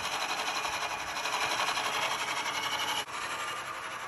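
Vertical milling machine running, its end mill cutting the welded-over metal of a Harley-Davidson JD cam gear chest. It is a steady, dense machining noise with a short drop about three seconds in.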